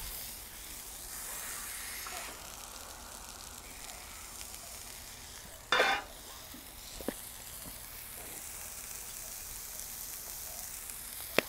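Ground-beef smash-burger patties sizzling steadily in avocado oil on a hot Blackstone flat-top griddle. A brief, louder clatter comes about six seconds in, and a sharp click comes near the end.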